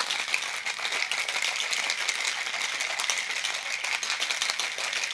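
A dense, steady rattle made of many fast small clicks.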